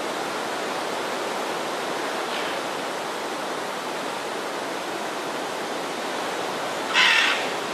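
A scarlet macaw gives a short, loud, harsh squawk about seven seconds in, with a fainter one about two and a half seconds in, over a steady rushing noise.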